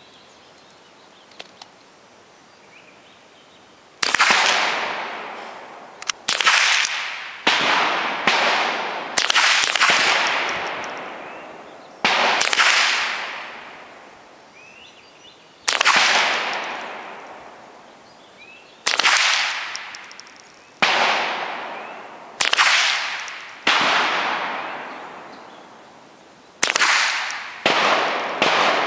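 Rifle shots at an outdoor range: after about four seconds of quiet, roughly fifteen shots at an irregular pace, some in quick pairs, each a sharp crack that echoes and dies away over a second or two.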